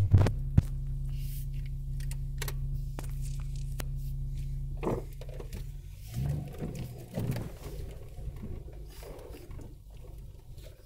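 Off-road vehicle's engine idling with a steady hum, with a few clicks and knocks over it. About five seconds in the steady hum drops away into a quieter, uneven rumble with scattered handling knocks.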